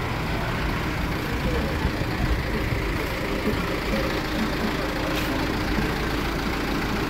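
Truck engine idling steadily, a constant low running sound, with faint voices in the background.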